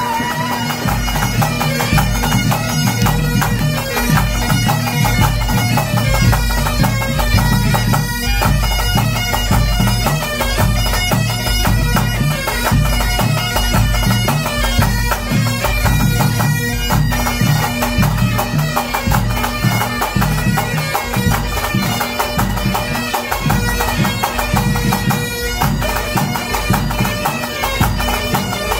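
A pipe band playing a tune: Great Highland bagpipes sounding a melody over their steady drones, with a bass drum beating underneath.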